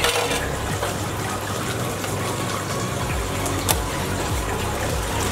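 Steady rush and splash of water churned by the aquarium's circulation pump and aeration, with a short rustle at the start and a single click past halfway.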